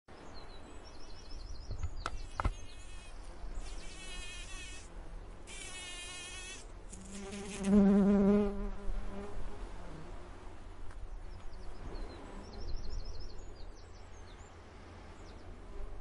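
Bees buzzing as they fly about, several passing close to the microphone with a rising and falling buzz, the loudest about eight seconds in. Beneath them, a low steady rumble of distant sea.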